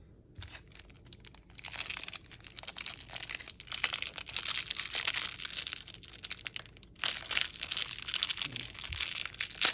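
Thin cellophane wrapper on a sealed pack of trading cards crinkling and tearing as it is pulled open by hand: dense crackling starting about a second and a half in, a short break near seven seconds, then more crackling.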